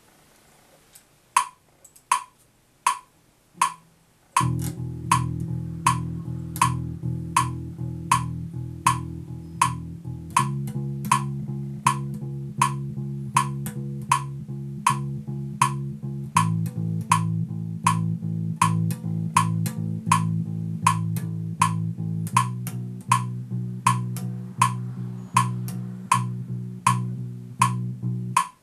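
Electric bass guitar played fingerstyle along with steady metronome clicks. Four clicks count in, then the bass enters about four seconds in with repeated notes. It changes note every two bars, going open E, C sharp, open A, then B, and stops just before the end.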